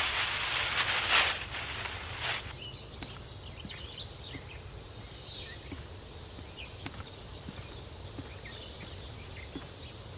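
A thin plastic carrier bag rustling in loud crinkly bursts as it is handled and lifted, for about the first two seconds. After that, quiet outdoor ambience with scattered faint chirps.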